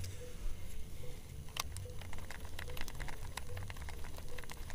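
Water lapping and ticking against the hull of a small wooden boat in many small irregular splashes, over a steady low rumble.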